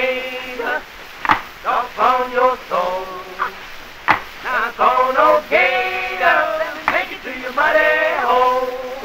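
A man singing in drawn-out, wavering phrases, with sharp percussive knocks between them.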